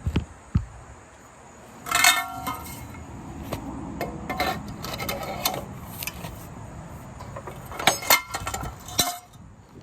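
Metal tools clanking and ringing against a mower blade and deck as a wrench and bar break a blade bolt loose. There is a sharp ringing clank about two seconds in, scraping through the middle, and a cluster of clanks near the end.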